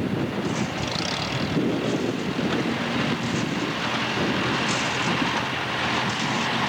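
Farm tractor engine running steadily, with wind noise on the microphone.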